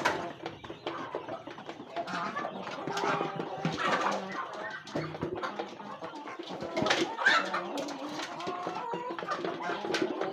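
Mixed flock of chickens, ducks and geese feeding from metal basins of rice: a steady jumble of clucking and short calls, with a few sharp clicks.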